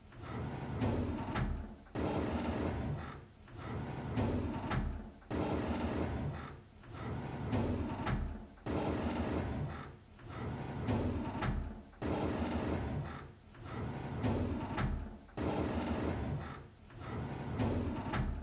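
A drawer sliding open again and again, about once every second and a half to two seconds. Each stroke is a rolling slide, and several end in a sharp click as the drawer stops.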